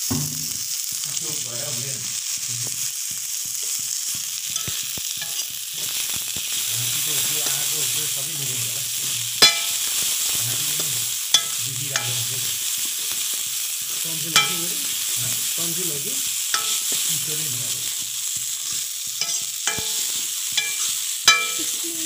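Sliced onions frying in hot oil in a metal wok, sizzling steadily while a steel ladle stirs them. The ladle clinks sharply against the pan now and then, several times in the second half.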